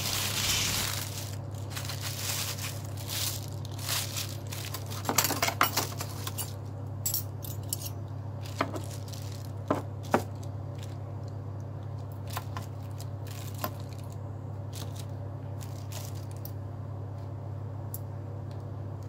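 Clear plastic food wrap crinkling as a takeaway pack of chicken rice is unwrapped, with a metal spoon and fork clinking now and then. A steady low hum runs underneath. The crackles are densest in the first several seconds and thin out to scattered clicks later.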